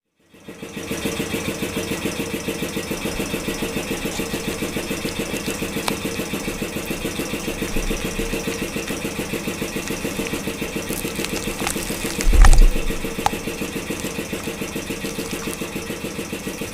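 An engine running at idle with a rapid, even chug of about seven beats a second; one loud thump comes about twelve and a half seconds in.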